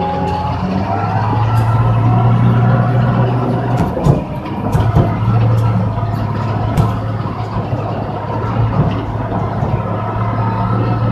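Heavy diesel engine running steadily with a low drone that briefly dips about four seconds in, with scattered clanks and rattles over it.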